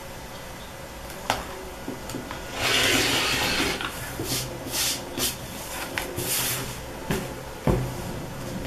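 Rotary cutter rolling through cotton fabric along an acrylic ruler on a cutting mat, with one long cutting stroke about three seconds in. Shorter scraping strokes follow as the cloth and ruler are shifted, and there are a few knocks near the end as the ruler is set down.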